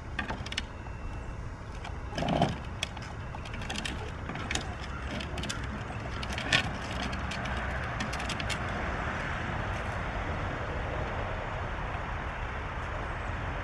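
Scattered light clicks and knocks from a child handling a plastic ride-on toy car, one sharper knock about two seconds in and a sharp click past the middle; a steady rushing noise swells through the second half.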